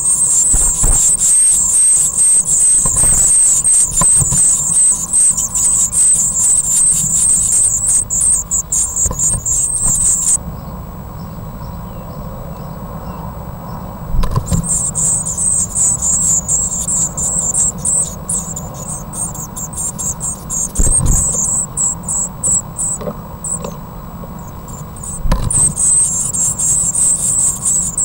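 Brood of blue tit nestlings begging for food: a dense, high-pitched chorus of calls in three long bouts, each several seconds long with short quieter gaps between, as an adult at the nest is about to feed them. Low knocks and scuffles from the birds moving in the nest box come through now and then.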